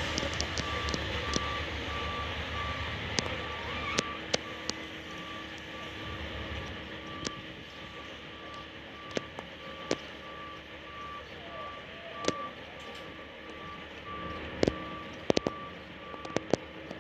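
Mobile boat hoist travelling with its warning alarm sounding a steady high beep that repeats evenly, about twice a second, over a low background rumble. Sharp clicks break in here and there, several of them near the end.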